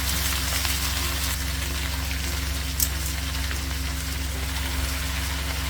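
Chirraku leafy greens and sliced onion sizzling steadily in hot oil in a pan, with a steady low hum underneath and one small click about three seconds in.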